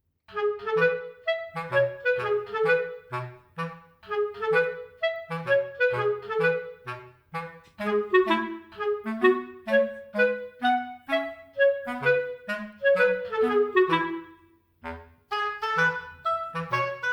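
Light, bouncy background music: a clarinet-like woodwind playing a lively staccato tune over a simple bass line, pausing briefly near the end.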